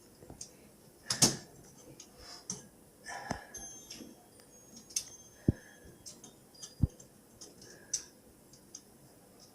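Scattered clicks and light knocks of hand tools and metal parts being handled while a dishwasher is taken apart. The loudest knock comes about a second in, with a few more spread through the rest.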